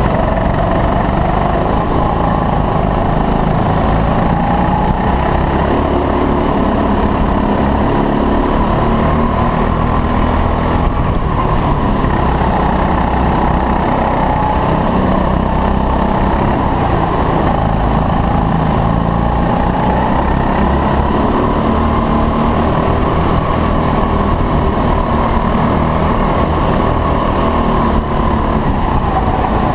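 6.5 PS rental kart's small petrol engine, heard from the driver's seat, revving up and falling back again and again as the kart accelerates out of corners and lifts into them.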